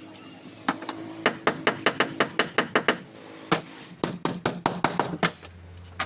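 Hammer striking the plywood of a wooden boat's hull in two runs of quick blows, about five a second, with a single blow between them.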